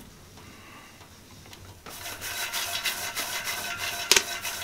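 Popped popcorn rustling and scraping against the inside of a stainless steel pot as the pot is shaken. It starts about two seconds in and has a faint metallic ring, with a sharp clack near the end.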